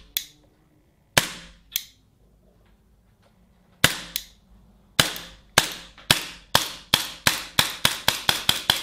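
Secutor Bellum X full-metal CO2 blowback pistol, a Beretta M92 replica, firing semi-automatic: about fifteen sharp shots, each with the slide cycling. They come slowly and unevenly at first, then quicken to about three or four a second near the end.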